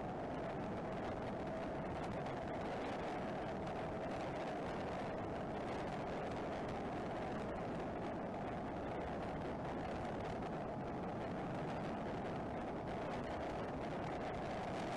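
Steady rush of wind and tyre noise from a Denzel Rush 4 electric dirt bike cruising at about 43 mph, with no engine note.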